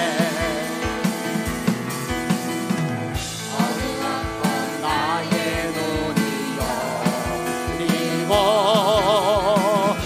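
Worship-team singers with microphones singing a Korean gospel praise song over band accompaniment with a steady beat; a long held note with vibrato near the end.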